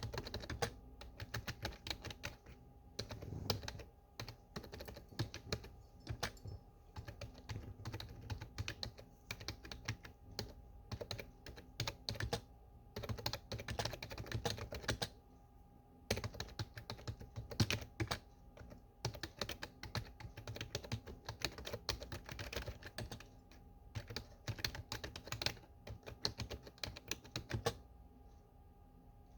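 Typing on a desktop computer keyboard: rapid, irregular key clicks in bursts, with brief pauses between runs.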